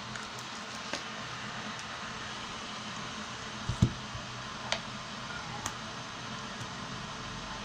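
Steady background hiss with a few small clicks of handling, and one louder, dull thump about four seconds in as the small plastic Bluetooth headset and its cable are set down.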